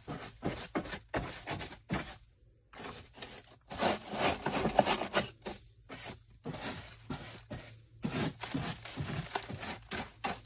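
Loose cat litter scraping and pattering as it is emptied out of the Litter-Robot 4's globe. It comes in irregular rushes with short pauses, one about two seconds in.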